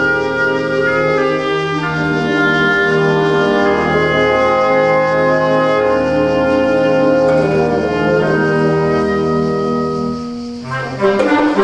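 Instrumental background music with long held chords; a little after ten seconds it dips briefly and a busier passage begins.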